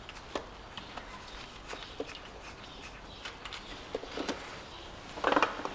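Sparse small clicks and taps of gloved hands disconnecting the wiring from the engine's starter, with a short rustling scrape near the end.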